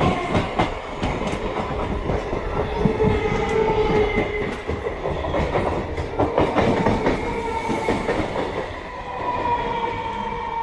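Electric multiple unit traction motors screaming: a whine at several pitches that slowly shifts, with wheels clattering over rail joints as two suburban EMUs pass each other on adjacent tracks.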